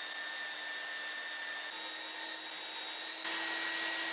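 Small bench belt sander running steadily with a whine and a sanding hiss as a thin spruce strip is held against the belt. The sound grows louder for about the last second.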